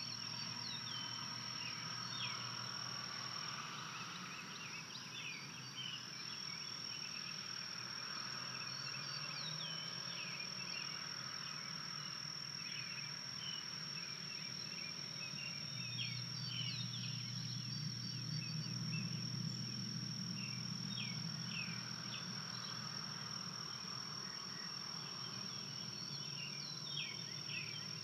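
Outdoor woodland ambience: birds chirping in short, scattered calls over a steady high-pitched tone and a low hum.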